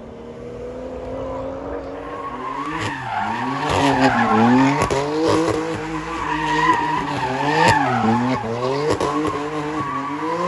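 A car engine revving hard, its pitch rising and falling over and over, while the tyres spin and squeal in a smoky burnout, with several sharp cracks over the top.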